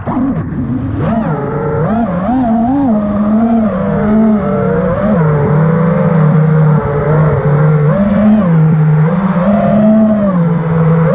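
FPV quadcopter's electric motors and propellers buzzing, the pitch rising and falling again and again as the throttle changes, heard from on board the drone.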